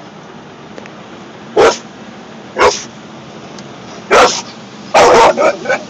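Dog barking inside a car: three single barks about a second apart, then a quick run of several barks near the end, over the steady hiss of the car wash.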